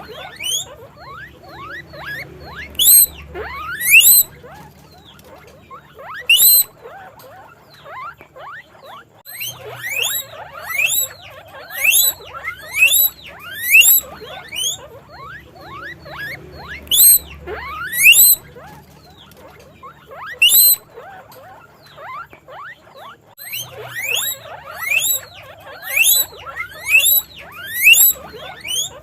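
Guinea pigs wheeking: repeated high-pitched squeals that sweep upward in pitch. The loud calls come about once a second in runs, with fainter calls overlapping between them.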